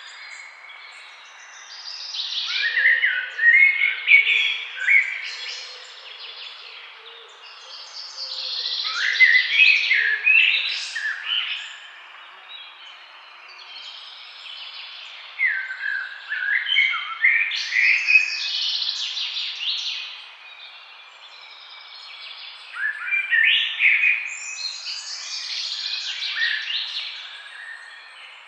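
Songbirds singing in a forest, rapid chirping phrases that come in four bouts of a few seconds each with short pauses between, over a faint steady background hiss.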